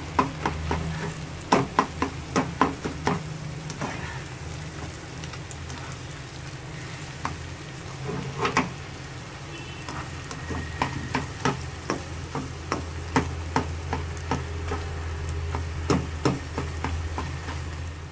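Beaten eggs sizzling as they fry in oil in a non-stick wok, with irregular sharp taps and scrapes of a slotted spatula against the pan as the egg is stirred and broken into pieces. A steady low hum runs underneath.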